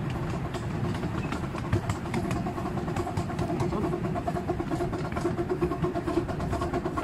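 Miniature steam train on 7¼-inch gauge track running at a steady pace: a constant rumble of the wheels on the rails with frequent light clicks, and a faint steady whine that grows a little stronger near the end.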